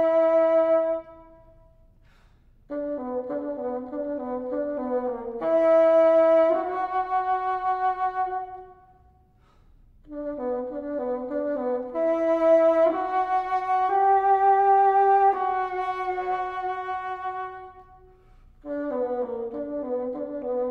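Solo bassoon playing a slow lament. There are three phrases with short pauses between them: quick alternating notes lead into longer held notes. The first phrase is only a held note that ends a second in.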